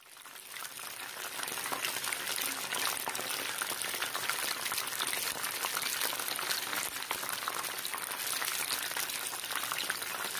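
Cornstarch-coated chicken pieces frying in hot oil in a pan, a dense steady sizzling and crackling that builds over the first two seconds and then holds. This is the second fry that makes the coating extra crispy.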